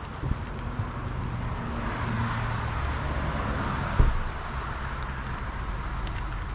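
Motor vehicle running, with a low engine rumble and road noise that swells about two seconds in. A single knock sounds about four seconds in.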